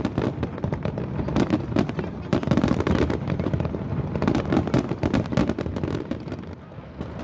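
Fireworks display going off: a dense, rapid barrage of bangs and crackles over a low rumble, thinning out and getting quieter near the end.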